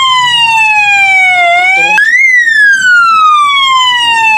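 Fire alarm sounder wailing a siren tone that falls slowly in pitch and then sweeps quickly back up, one cycle about every three and a half seconds. The alarm has been set off by pressing the manual call point.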